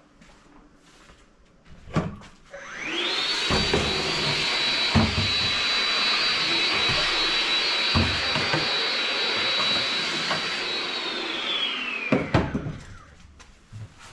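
Vacuum cleaner switched on with a click, its motor whining up to speed and running steadily for about nine seconds, with a few knocks along the way, then switched off and winding down.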